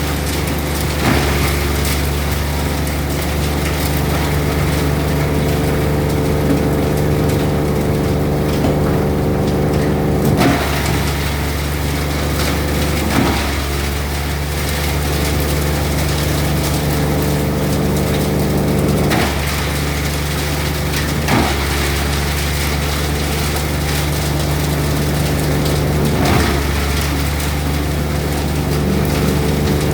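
Cocopeat and coco fibre machine running steadily with a constant engine-like drone, with a short knock every few seconds.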